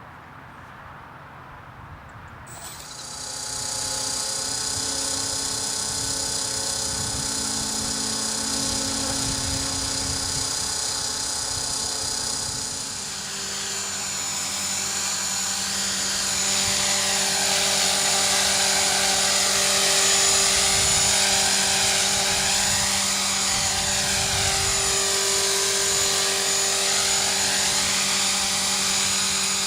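Copter X 450 AE electric RC helicopter starting up about two and a half seconds in, its motor and rotor whine rising quickly to full speed. It then flies about, the whine's pitch wavering up and down as it manoeuvres, over gusts of wind on the microphone.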